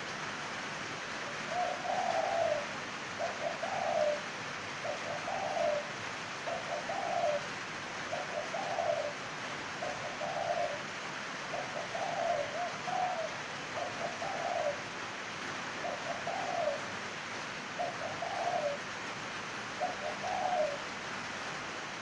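A caged spotted dove cooing: the same short phrase repeated over and over, about once a second with brief gaps between, over a steady background hiss.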